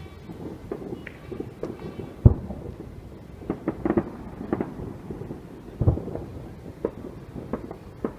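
Fireworks going off: an irregular run of bangs and crackles over a low rumble, with two deep booms standing out, one a little over two seconds in and one about six seconds in.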